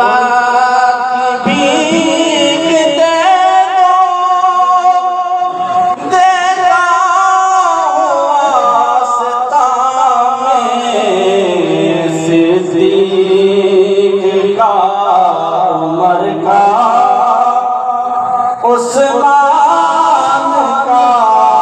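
A man singing a naat solo into a microphone, holding long, ornamented notes that slide up and down.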